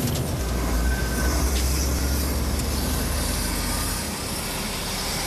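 Heavy truck running on the road: a steady deep engine rumble under road and wind noise, easing about four seconds in.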